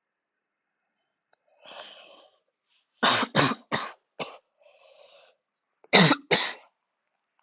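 A person who is ill coughing: a breath in, a burst of four harsh coughs, another breath in, then two more coughs near the end.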